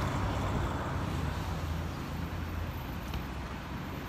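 Street traffic: a car's engine and tyre noise passing and fading away over the first couple of seconds, leaving a lower steady traffic hum.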